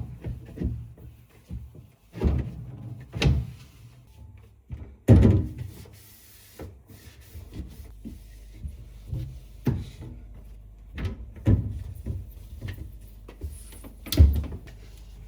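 A series of knocks and clunks of household things being handled, like cupboard doors and items being set down, loudest about five seconds in and again near the end. A low steady hum runs under the second half.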